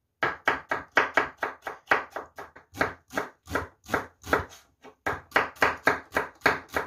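Kitchen knife chopping on a wooden cutting board: a quick, steady run of strokes, about four a second, as carrot and then onion are cut into thin strips, with a short pause a little past the middle.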